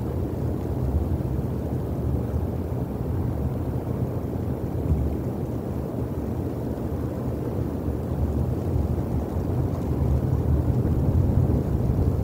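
Steady low rumble of outdoor background noise picked up by the nest camera's microphone, swelling slightly near the end.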